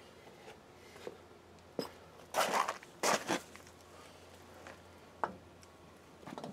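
Scattered handling noises from someone moving around and handling parts: a few light clicks and knocks, with two short scuffing bursts a little after two and three seconds in.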